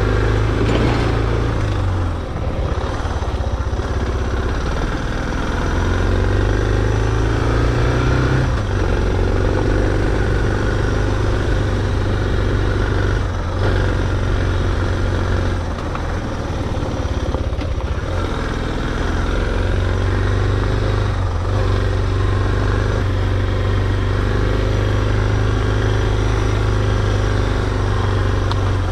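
Suzuki DR650's single-cylinder four-stroke engine running under way. The engine note dips about two seconds in, climbs and drops again about eight seconds in, as in gear changes, then holds steady.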